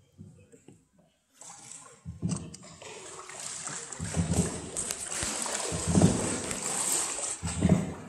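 Water splashing and sloshing, faint at first, then building about two seconds in to a steady loud splashing, with heavier sloshes about every two seconds.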